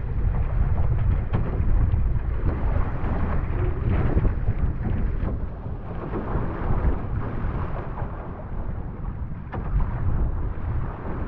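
Wind buffeting the microphone in a heavy low rumble, over the hiss and splash of wind chop against the hull and outrigger float of an OC1 outrigger canoe under paddle. The splashing swells and fades with the strokes and swells.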